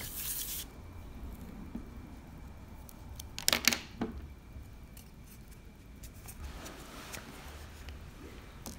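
Craft supplies, a glass jar and a plastic Mod Podge bottle, handled on a tabletop: a brief rustle at the start, then a quick cluster of sharp clicks and knocks about three and a half seconds in and one more just after, with faint small clicks later.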